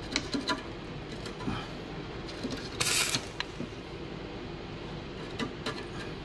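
Stick welder's electrode scratching and clicking against the painted steel handle tube of a lawnmower, the arc failing to hold because of the paint; about three seconds in the arc catches for a short noisy burst, then only a few clicks follow.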